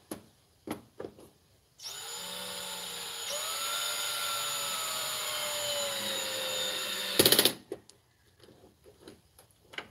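Cordless screw gun driving a screw into a TV's back panel: the motor runs steadily for about five seconds with a slightly wavering whine, then the clutch, set to its lowest setting, slips in a short, loud burst of rapid clicks as the screw reaches its set torque. A few light clicks of handling come before and after.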